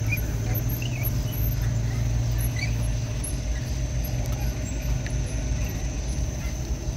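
A steady low machine drone with scattered faint high chirps over it.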